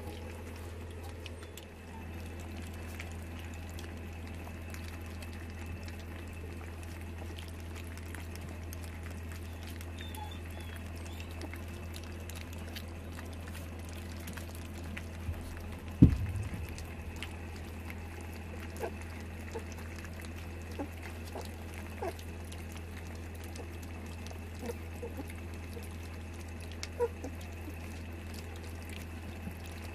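A litter of puppies lapping and slurping soft wet mash from a shared round metal feeding bowl, with many small wet clicks. A single loud knock comes about halfway through. A steady low hum runs underneath.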